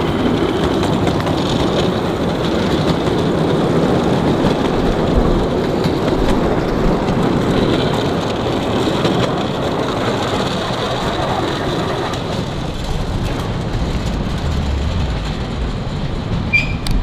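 10¼-inch gauge miniature steam train running past, the locomotive and then a string of passenger carriages rolling along the track. The sound eases off a little after about twelve seconds as the train moves away.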